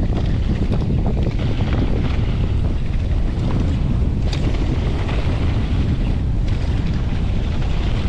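Steady wind buffeting the microphone of a mountain biker descending fast over loose volcanic dirt, with a dense rumble and a few faint knocks from the bike underneath.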